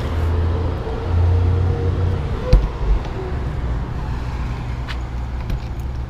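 Steady low machine rumble, like an engine or motor running, with a single knock about two and a half seconds in.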